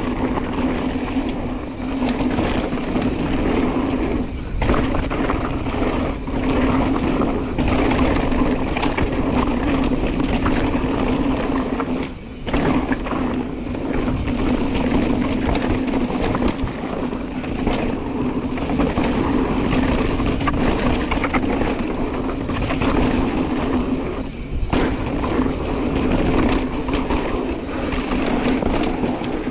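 Chromag Taival hardtail mountain bike riding down a dirt singletrack: continuous rolling rumble of the tyres and the rattle of the bike over the rough trail, dipping briefly three times.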